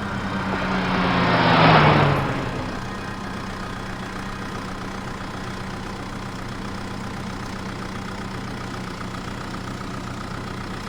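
Vehicle engine sound effect idling steadily, with a loud whoosh that swells and fades away about two seconds in.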